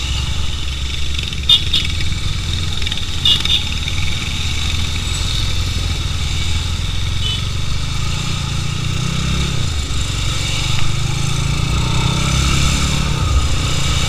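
Motorcycle engines running in a steady low rumble that rises and shifts in pitch twice in the second half. Two short clicks come within the first four seconds.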